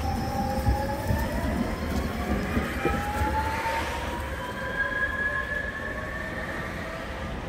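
Tatra-type overhead-line inspection tram running along the track, a low rumble under a whine that slowly rises in pitch, fading near the end.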